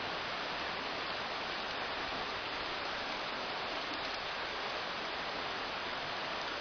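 Steady rain falling, an even hiss with no single drops or knocks standing out.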